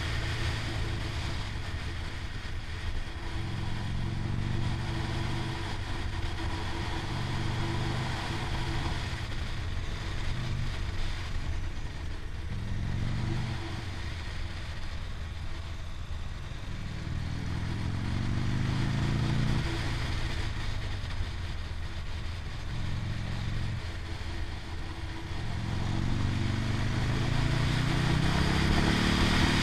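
Motorcycle engine running while riding, rising in pitch as it accelerates and dropping back at each gear change, most clearly in the second half. Heavy wind rush on the microphone runs under it.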